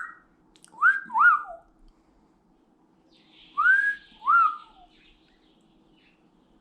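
Pet parrot whistling: two pairs of two-note whistles, each note rising and falling, the first pair about a second in and the second near the middle.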